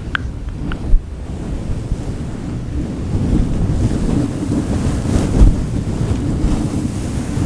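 Fingers rubbing and stroking a fluffy furry microphone windscreen close up, giving a loud, dense, low rustling noise that grows somewhat louder partway through.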